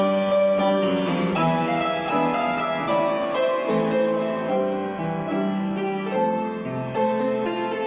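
Piano music: a melody over sustained chords, with notes struck in succession.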